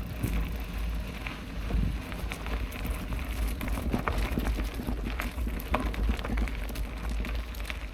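Mountain bike rolling along a dirt and rock trail: tyres crackling over loose gravel with frequent small clicks and rattles, over a steady low rumble.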